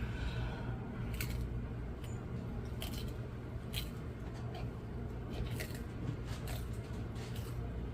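An animal biting and crunching its food, with short crisp snaps at irregular intervals over a steady low hum.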